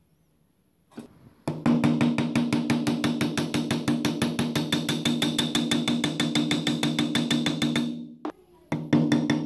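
Rapid, even hammer taps peening the rivets of a meat cleaver's handle scales on a steel block, with a steady metallic ring under the blows. The tapping starts about a second and a half in, stops briefly near the end, then resumes.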